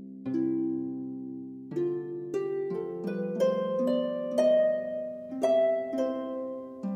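Background instrumental music: a slow melody of ringing notes struck over held chords.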